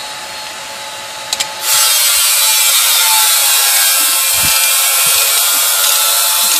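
Ratchet turning out a starter motor mounting bolt: a few light clicks, then from about a second and a half in a loud, steady buzz that holds without a break.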